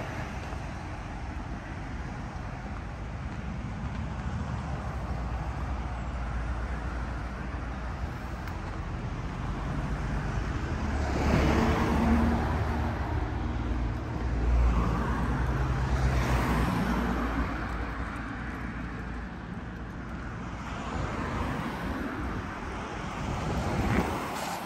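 Road traffic: a steady hum of passing vehicles, with two cars going by close, one after the other, about halfway through.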